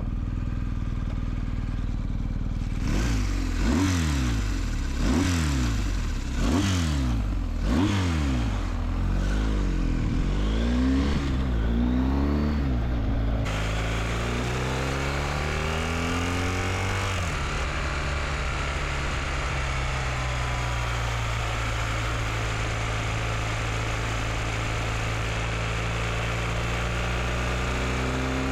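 BMW R1250GS boxer-twin engine idling, then revved up and down about seven times in quick blips. Around halfway it changes to a steadier, higher engine note with a hiss like wind over it. The revving is meant to bring out a fixed noise that the owner hears from the right cylinder above 4500 rpm.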